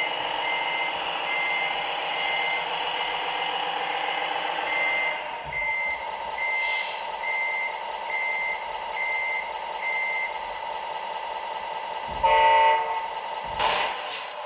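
A vehicle's reversing alarm beeping in a regular rhythm, about three beeps every two seconds, over a running engine. The beeping stops about ten seconds in, and a short, loud horn toot follows about two seconds later.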